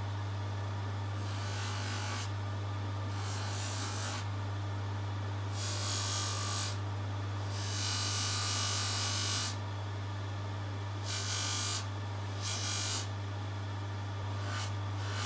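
Bench polishing machine running with a steady hum while a small watch bracelet part is pressed against its spinning buffing wheel in repeated strokes. Each contact gives a hiss lasting about half a second to two seconds, the longest about eight seconds in, with a few short touches near the end.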